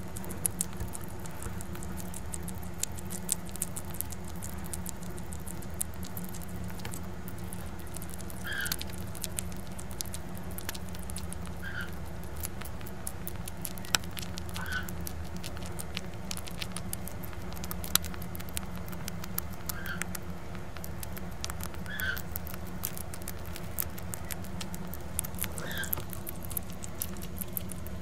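Red bats crunching mealworms: a fast, uneven run of small crisp clicks, with a short high squeak every few seconds over a steady low hum.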